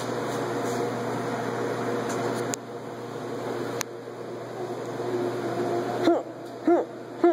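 Steady hum of laundromat machines running, with a couple of sharp knocks from handling. Near the end come three short vocal sounds from a young child, each rising and falling in pitch.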